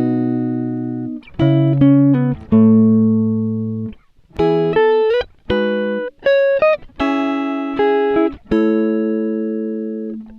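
Background music: plucked guitar chords, each struck and left to ring and fade, in short phrases with brief gaps.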